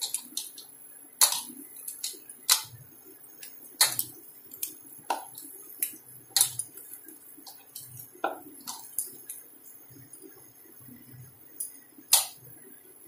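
Bangles clicking and clinking against each other and the plastic bowl, irregularly about once a second, as a hand squeezes and mashes boiled potato in the bowl. The loudest click comes near the end.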